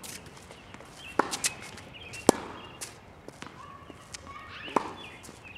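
Tennis ball being struck by racquets and bouncing on a hard court in a rally: a few sharp pops spaced about a second apart, the loudest about two seconds in.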